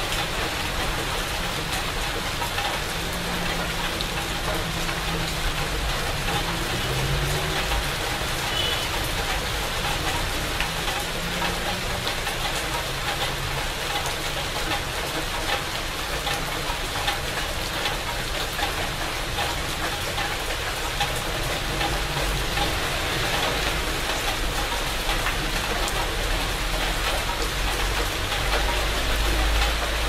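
Steady rain falling on the leaves of a dense shrub, with a fine patter of individual drops.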